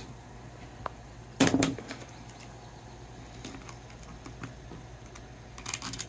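Meat scissors snipping into the hard, scaled hide of a gar behind its head, a few faint crunching clicks, with one louder knock about one and a half seconds in.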